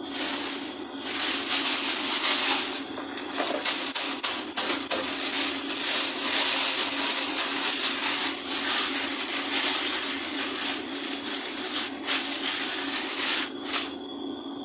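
Pot of fish curry boiling on a gas stove: a dense crackling hiss of bubbling and popping, dropping out briefly a few times.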